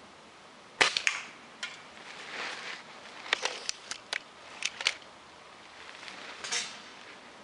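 BSA Spitfire 10 air rifle firing once, a sharp crack about a second in, followed by a series of smaller clicks and rustling as the rifle is handled between shots.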